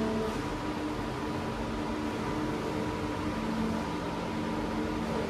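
Makino U6 H.E.A.T. wire EDM running a cut: a steady mechanical hum and hiss, with faint steady tones that fade in and out.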